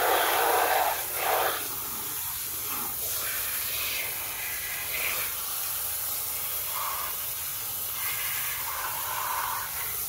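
Water jetting from a hose spray nozzle onto plastic toy trucks to wash off mud: a steady spraying hiss, loudest in the first second and a half, its tone shifting as the jet moves over different surfaces.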